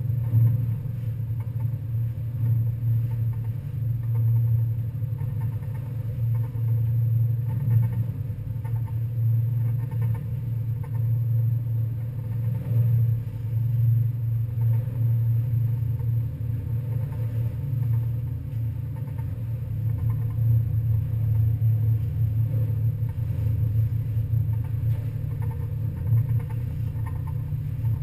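Steady low drone of an NY Waterway ferry's engines, heard from on board the vessel.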